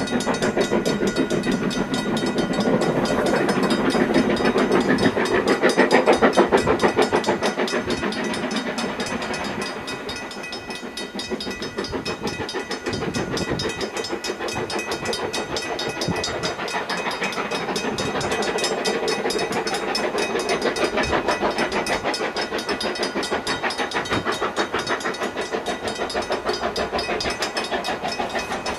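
Steam locomotive working, its exhaust beating in quick, even chuffs over a steady hiss of steam, loudest about six seconds in.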